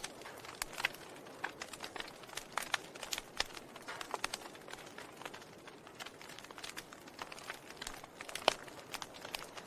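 Wood fire burning in a fireplace: logs crackling with irregular sharp pops over a soft steady hiss, one louder pop near the end.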